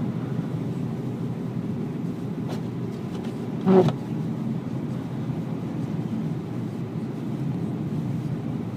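Steady low rumble of a car running, with a brief vocal sound a little under four seconds in.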